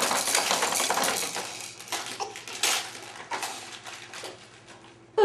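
Wrapping paper rustling and crackling as a gift is unwrapped, busy at first and thinning to scattered crackles near the end.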